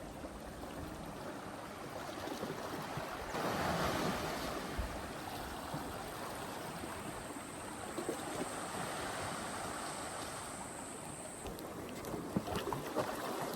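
Small waves washing against the shore, with wind, swelling about three seconds in and then settling.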